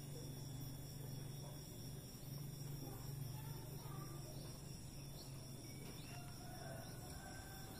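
Insects droning steadily at a high pitch in the background, with a few faint short calls about five to seven seconds in.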